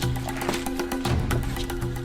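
Instrumental background music with sustained tones and a steady percussive beat.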